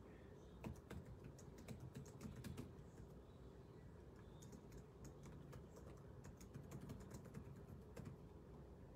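Faint typing on a computer keyboard: a run of quick key clicks from about a second in to nearly three seconds, then another run from about four and a half to eight seconds in.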